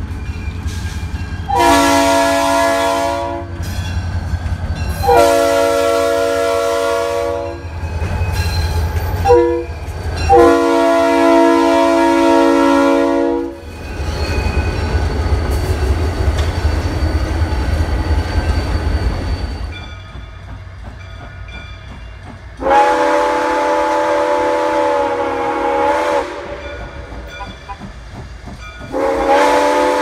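Diesel locomotive multi-chime air horn sounding the grade-crossing signal: long, long, short, long. The locomotive's engine and the wheels of the passing train rumble after it, then two more long horn blasts sound near the end.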